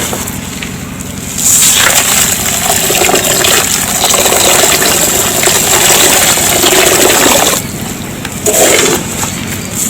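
Dry red dust or sand pouring into a tub in a continuous hissing rush, heavier from about a second and a half in until near the end, then thinner.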